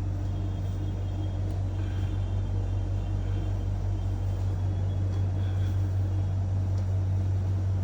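A steady low hum with faint background noise.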